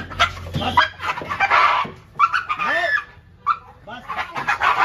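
Pit bull yelping and crying in about four loud bursts, pitch rising and falling within each cry, as it struggles against being held down for ear cleaning at the vet.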